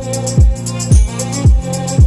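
Electronic background music with a deep kick drum on every beat, about twice a second, each hit dropping in pitch, over a held synth note and crisp high ticks.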